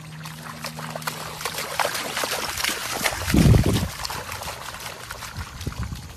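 A dachshund splashing as it runs through shallow standing water on a flooded lawn, a busy stream of small splashes. A short low rumble comes about halfway through.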